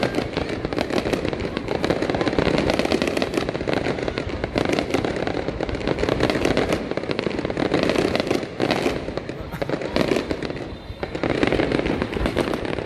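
Aerial fireworks display: a dense, continuous barrage of bangs and crackles from many shells bursting in quick succession, easing briefly near the end.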